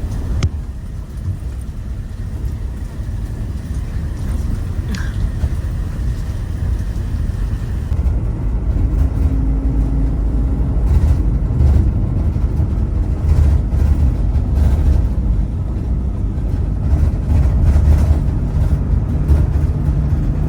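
Minibus running on the road, heard from inside the cabin: a steady low rumble of engine and tyres, with short knocks and rattles from about eight seconds in.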